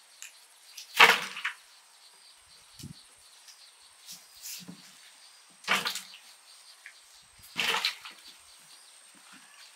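Boiled ears of corn dropped one after another into a plastic bucket, making short knocks: three loud ones, the first about a second in, the others later, with fainter ones between.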